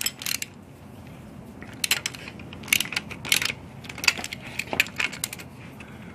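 Steel hand tools clinking on an exhaust manifold stud: a box-end wrench and a socket ratchet being set on two nuts locked together on the stud, giving a string of sharp metallic clicks, several spaced under a second apart.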